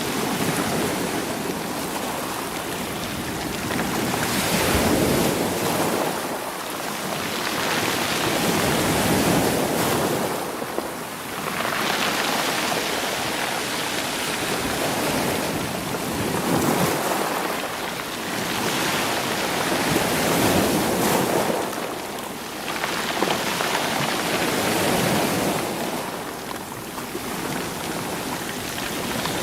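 Sea waves washing onto a stony shore, rolling the rocks as they surge and draw back. The noise swells and eases about every four to five seconds.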